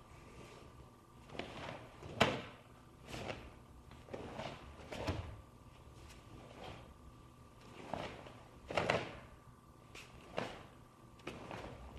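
Sharp cracks of a karate gi and slaps of bare feet on the mat as Pinan Yondan kata techniques are performed, about a dozen irregularly spaced snaps with the loudest near the start and about three quarters of the way through, over a faint steady hum.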